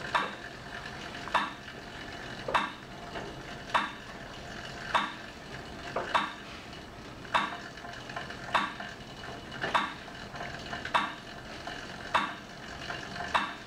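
Mechanical cycle ergometer being pedalled: a steady whir from the braked flywheel, with a short squeak about every 1.2 seconds, roughly fifty a minute, once per pedal turn.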